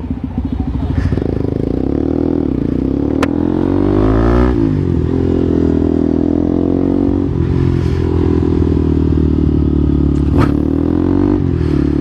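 Bajaj Pulsar NS200's single-cylinder engine pulling away and accelerating through the gears. Its pitch climbs, then drops sharply about four seconds in at an upshift, and climbs again with further shifts near seven and eleven seconds, with a couple of sharp clicks along the way.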